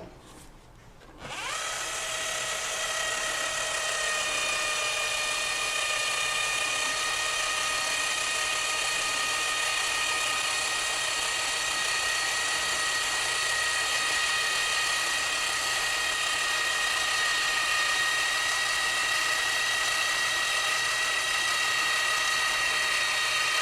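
Electric caulking gun motor whining steadily as it pumps caulk out through the nozzle. It starts about a second in with a brief rise in pitch, after a short knock at the very start.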